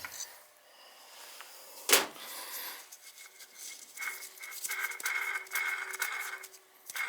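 Boiler circulator pump motor being turned over, its worn bearings giving a pulsing squeal about twice a second from about three seconds in: the bearings are gone. A single sharp knock about two seconds in.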